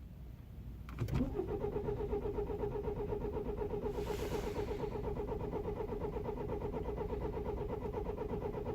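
A 2009 BMW 320i's four-cylinder petrol engine being cranked by its starter motor in cold weather, a click about a second in and then a long, even cranking rhythm that never catches. The hard start comes from a broken camshaft chain tensioner.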